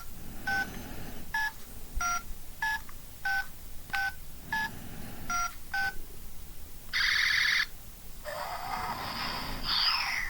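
Toy phone keypad beeping: about ten short two-tone beeps in quick succession, like a number being dialed. Then a short electronic buzz, followed near the end by an electronic sound effect with swooping tones.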